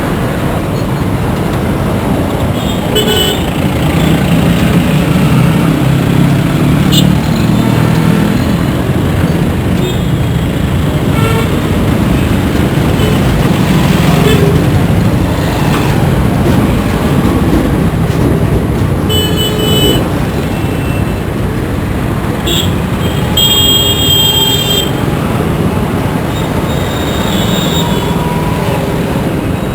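Busy Indian road traffic: a steady rumble of engines and tyres, with short horn toots sounding several times, the longest run of honks about three quarters of the way through.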